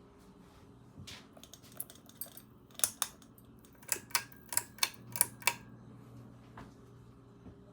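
A dozen or so sharp clicks at uneven spacing, the loudest coming in a quick run about four to five and a half seconds in, over a steady low hum.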